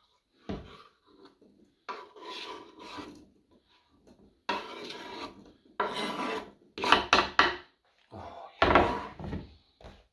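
Several short bursts of scraping and rustling, with quiet gaps between them, as ham is handled and added to the omelette bowl.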